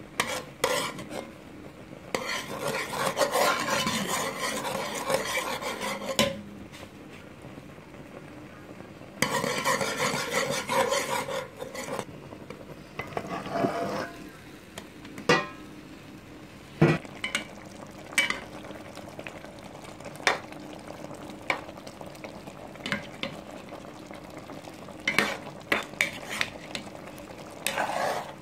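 A metal spoon stirring and scraping in a pot of bubbling coconut milk with salt mackerel and vegetables. There are two longer spells of busy stirring in the first half, then many sharp clinks of the spoon against the pot.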